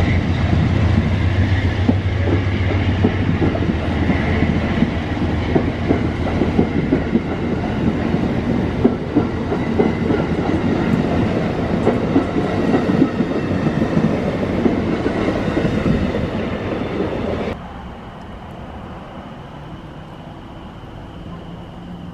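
Amtrak passenger train's stainless-steel coaches passing at speed, wheels clattering over the rails with many sharp clacks. About 17 seconds in it cuts off suddenly to a much quieter steady background.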